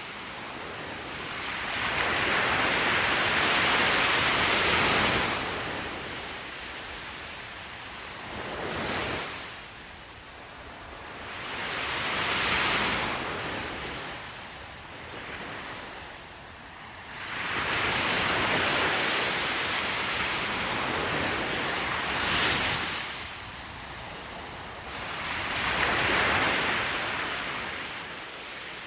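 Small waves breaking and washing up a sandy beach: a hiss of surf that swells and fades every few seconds, about six times.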